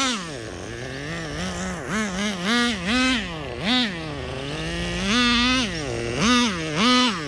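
Traxxas Nitro Rustler's small nitro engine revved in about eight short throttle blips, its whine rising sharply and falling back to a lower idle each time, with one longer rev a little past the middle. This is a carburettor mixture test, and the owner judges it running too rich.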